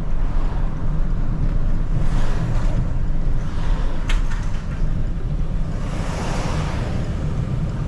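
Car driving: steady low engine and road rumble heard from inside the cabin, with a hiss of tyre or wind noise swelling twice, about two seconds in and again near the end.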